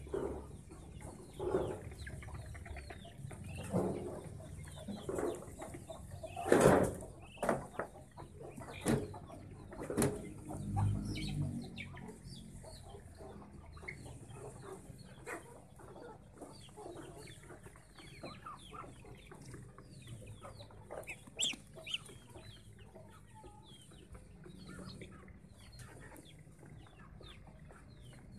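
Farmyard chickens and ducks calling as they feed: clucking and many short high peeps, with several louder calls in the first ten seconds or so.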